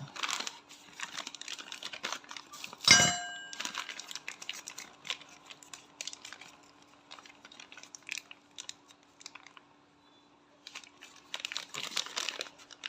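Rustling, crinkling and light clinks of scooter CVT parts and tools being handled, with one sharp metal clink that rings on briefly about three seconds in. The handling goes quiet for a moment about ten seconds in.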